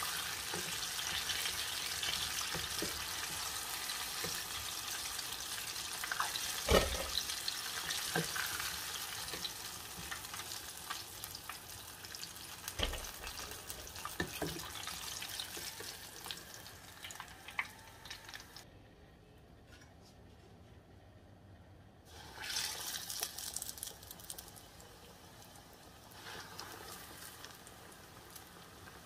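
Battered chicken deep-frying in hot oil in a stainless steel saucepan: a steady sizzle and bubbling, with a few sharp knocks of a slotted spatula against the pan as the pieces are turned. The sizzle drops out for a few seconds about two-thirds of the way in, then comes back.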